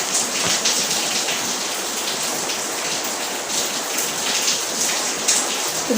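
Steady hissing background noise like heavy rain, with a few faint ticks.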